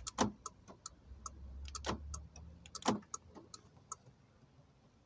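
Hyundai i30's central door locks working from an aftermarket keyless remote: three sharp clunks of the lock actuators, at the start and about two and three seconds in, with lighter clicks between them.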